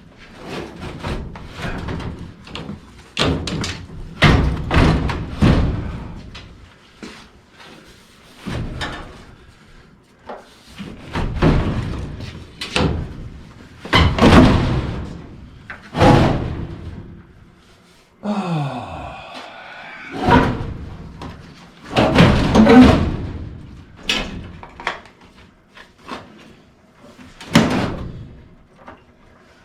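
Replacement sheet-steel heat exchanger of a Carrier 58MCA furnace banging, thudding and scraping against the metal cabinet as it is worked into place. A brief falling screech of metal on metal comes a little past the middle.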